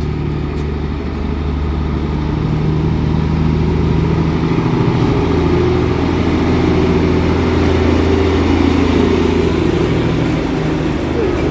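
A vehicle engine running steadily with a low, even drone that grows a little louder about three seconds in.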